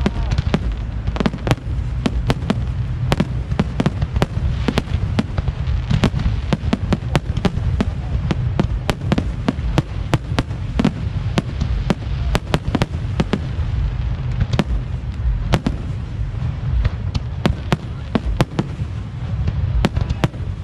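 Fireworks display going off in a rapid, irregular barrage of bangs and crackles, several a second, over a steady low rumble.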